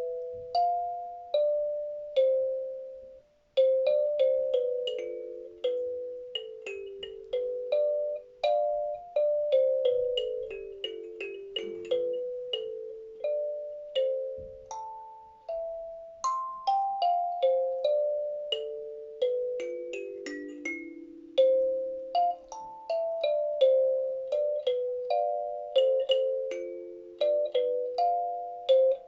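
Kalimba (thumb piano) played slowly: single plucked notes that ring and fade, in wandering runs stepping up and down, with a brief pause about three seconds in.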